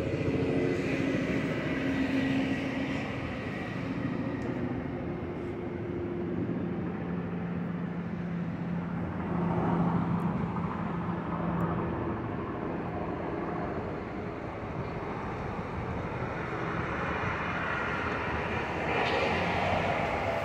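City street traffic noise: a steady rumble of passing vehicles, with an engine hum standing out for several seconds in the middle.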